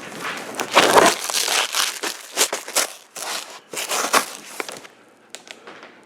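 Shipping box and its packing being opened and handled during an unboxing: irregular crinkling and rustling for about five seconds, then a few scattered clicks.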